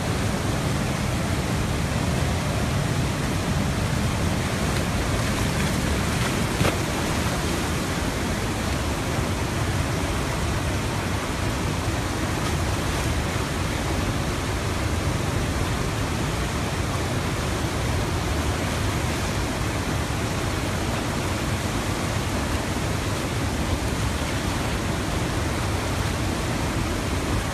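Loud, steady rushing of a flooded river torrent, the Tanaro over its banks and pouring through the streets. There is one brief click about six and a half seconds in.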